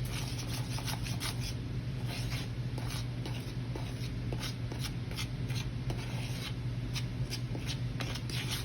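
A spoon stirring dry ingredients (flour, cocoa powder, baking soda and salt) in a mixing bowl: repeated, irregular scraping strokes, several a second, over a steady low hum.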